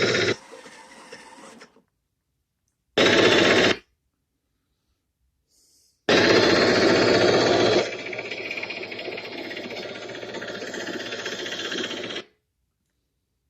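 Prerecorded sound effects played through a small portable Bluetooth speaker built into a Z-6 rotary cannon prop, heard in three separate bursts. Each starts and stops abruptly. The last lasts about six seconds and drops quieter partway through.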